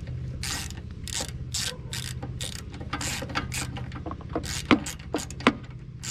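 Socket ratchet clicking in short back-and-forth strokes, about two a second, tightening down the carburetor mounting bolts on a push mower engine, with two sharper clicks near the end. A steady low hum runs underneath.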